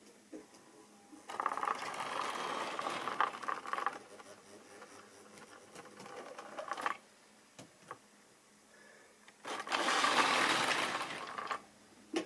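Model railway container wagons running along the track, their wheels clattering and clicking over the rail joints. The clatter grows louder for a few seconds about a second in, and again for about two seconds near the end.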